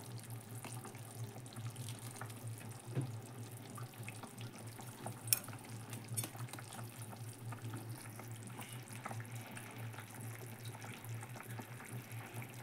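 Faint kitchen sounds around a pot of gravy: a steady low hum, a light watery stirring sound from a steel ladle in the gravy, and a few small clicks, the sharpest about five seconds in.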